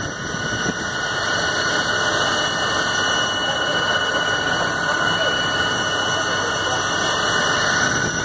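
Fire engines running at a fire scene: steady engine and pump noise with a constant high whine over it.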